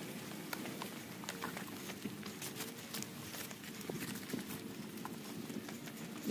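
Footsteps on a trail, with irregular sharp clicks and taps several times a second.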